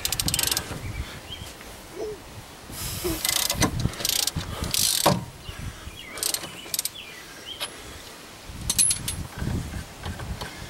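Ratchet clicking in quick runs as it turns the forcing screw of a C-frame ball joint press on a truck's front suspension, with scattered metal clanks from the steel press and handle.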